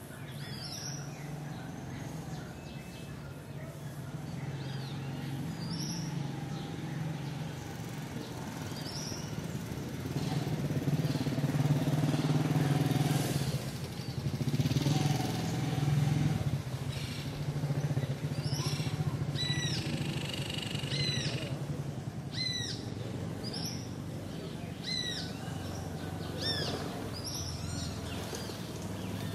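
Village morning ambience: a motor vehicle engine runs with a steady low hum throughout, louder for a while around the middle. Birds chirp over it, and in the second half one bird repeats short chirps about once a second.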